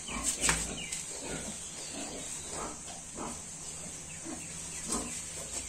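Newborn piglets and their sow grunting and squeaking in short, soft calls, with a couple of knocks near the start and one near the end, over a steady high hiss.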